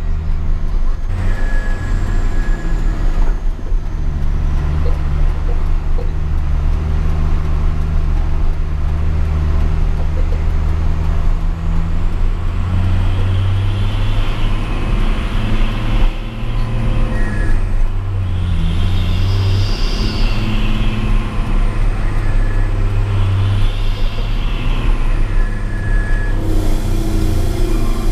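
Hino 500 truck's diesel engine running steadily through its 'Cung' aftermarket exhaust, its note stepping up and down several times from about halfway through.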